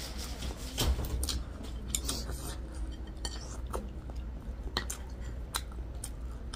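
Close-miked eating sounds: chewing, with scattered sharp clicks of chopsticks and utensils against plates and bowls.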